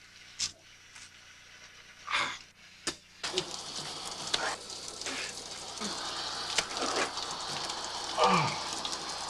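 A shower switched on about three seconds in, its water spray then hissing steadily, after a few short knocks. Brief grunts and breathing sounds come over the running water, the loudest near the end.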